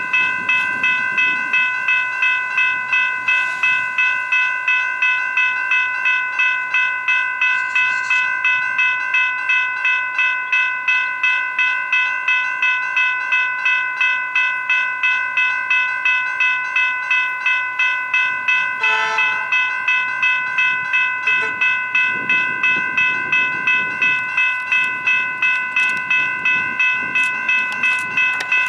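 Railway level crossing warning bell ringing steadily, about two and a half strikes a second.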